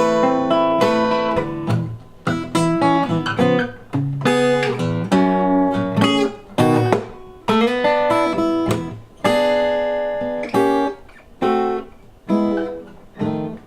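Acoustic guitar playing a blues tune: picked notes and strummed chords, each ringing out. The second half is a run of separate struck chords with short gaps between them.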